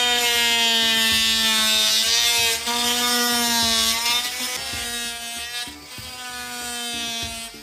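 WORX Sonicrafter oscillating multi-tool with an end-cut blade, plunge-cutting through drywall: a steady buzzing whine that wavers slightly in pitch, dropping in level a little after halfway.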